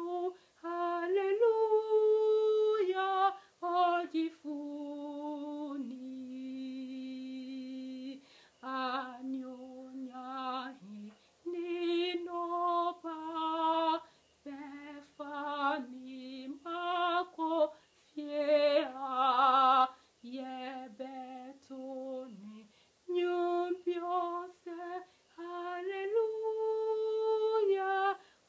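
A woman singing an Adventist hymn in Twi, solo and unaccompanied, in phrases of held notes with short breaths between them.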